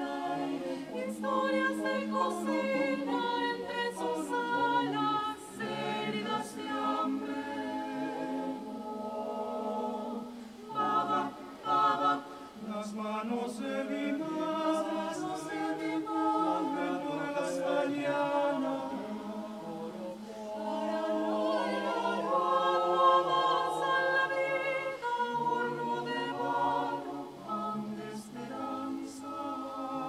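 Mixed-voice vocal ensemble of men and women singing a cappella in parts: held chords that shift in harmony, with crisp consonants, growing to a fuller, louder passage about two-thirds of the way through.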